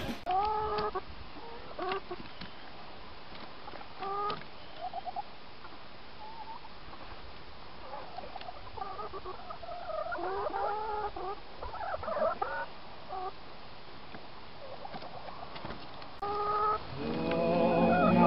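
Domestic hens clucking and giving short calls at intervals as they go up into the coop to roost, with a busier stretch of overlapping calls in the middle. Music comes in near the end.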